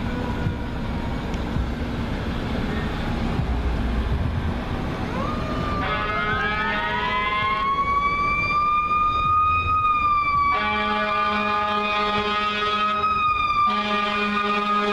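Fire engine's Federal Q mechanical siren winding up from low rumbling traffic about five seconds in, rising into a high sustained wail that sags slightly. Air horn blasts sound over it: a short one just after the wind-up, a long one in the second half, and another near the end.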